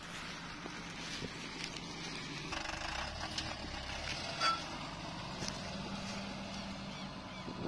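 Flatbed tow truck's engine running steadily as the truck moves across rough ground. A single brief, sharp sound about four and a half seconds in.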